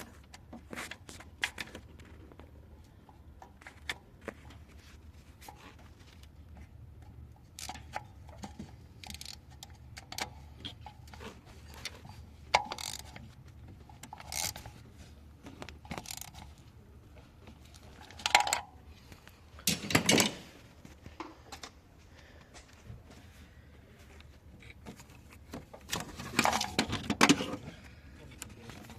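Scattered metallic clinks, knocks and scrapes of tools and parts being handled, louder in a few clusters, over a faint steady low hum.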